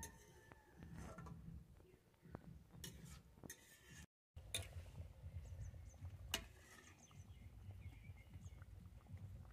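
Faint clinks and scrapes of a metal spatula stirring curry in a metal wok, over a low steady rumble, with one sharper clink a little past six seconds in. The sound drops out completely for a moment just after four seconds.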